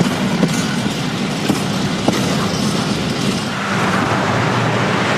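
Freight train of container flat wagons rolling past close by, a steady rumble and rush with a few sharp clacks of wheels over rail joints. About three and a half seconds in it gives way to a steadier rushing hiss of motorway traffic.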